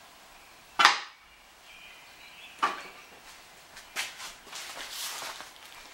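Objects being lifted off a bandsaw's table and set down. A sharp knock comes about a second in and two softer knocks follow, then a stretch of rustling like a bag being handled.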